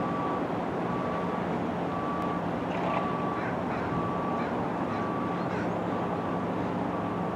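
Electronic warning beeper sounding one even beep about once a second, over a steady low rumble.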